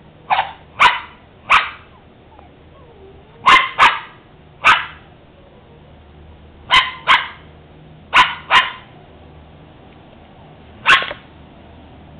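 A small dog barking at a squirrel treed above it: about eleven short, sharp barks, mostly in quick pairs, with pauses of a second or two between them.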